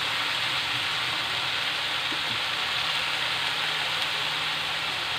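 Cabbage, carrots and green beans sizzling steadily in a hot wok, an even hiss with a faint low hum underneath.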